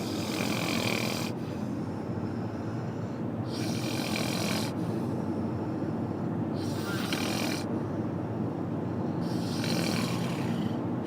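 A sleeping person snoring in a steady rhythm: a rasping rattle with a hissy breath about every two and a half to three seconds, four breaths in all.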